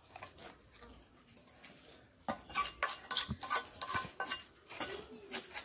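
Steel hoe blade scraped against the edge of a concrete step, a run of quick rasping strokes starting a couple of seconds in, as when a farm hoe is sharpened or cleaned on stone.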